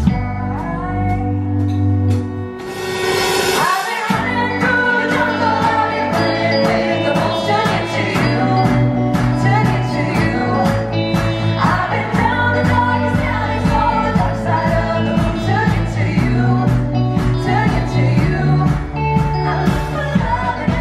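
A woman singing a pop song live into a microphone, backed by electric guitar and bowed strings. A brief rushing swell rises about three seconds in, and the accompaniment fills out after it.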